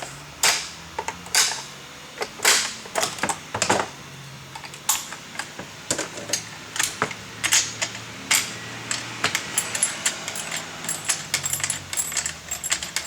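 Metal clicks and clinks of parts being handled. They are irregular at first and come quicker and denser over the last few seconds.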